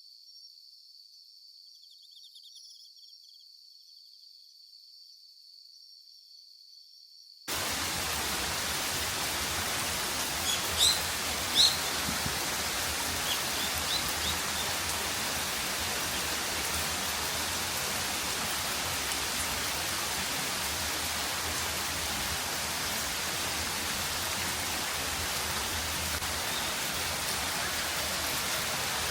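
Faint steady high-pitched insect chirring, then an abrupt change about seven seconds in to steady heavy rain falling. A few short bird chirps come through the rain a few seconds after it starts.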